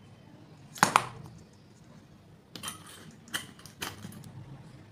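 Hard plastic clicks and knocks of LED bulbs being handled and a bayonet-cap bulb fitted into a plastic lampholder: a sharp double click about a second in, the loudest, then three lighter clicks over the next two seconds.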